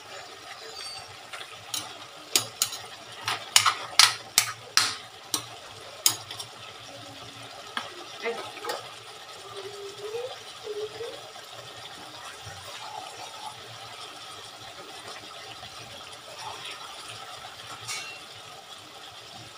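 A spatula clacking and scraping against an aluminium wok as pork and chicken adobo is stirred: a run of sharp knocks over the first six seconds or so. After that, a steady low hiss from the pan as the meat simmers in its sauce.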